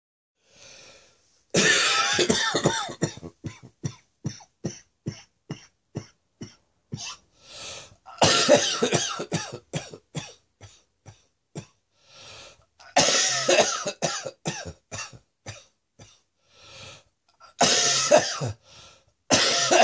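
A person's chesty cough lingering after a chest infection, in several fits every few seconds. Each fit opens with a long harsh cough and trails off into a string of short, rapid coughs. Fainter drawn-in breaths come between the fits.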